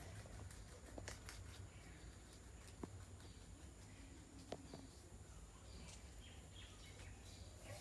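Near silence with faint bird calls in the distance and a few soft clicks.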